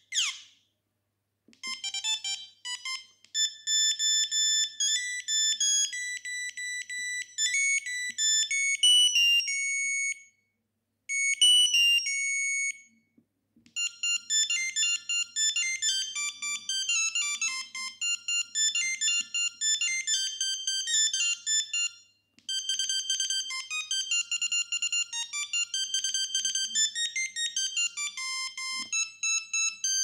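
Ericsson R600s mobile phone playing its built-in ringtone previews: simple, high-pitched beeping melodies, one tune after another, with brief breaks as the selection moves down the list.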